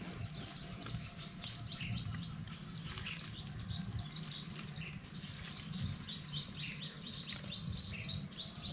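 A wild bird chirping in a quick run of short, high, falling notes, several a second, growing busier in the second half.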